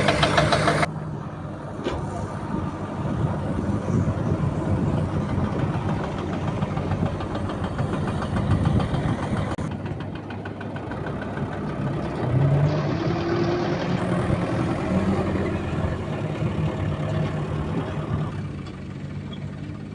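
Diesel engine of heavy construction machinery running steadily, its sound changing abruptly several times.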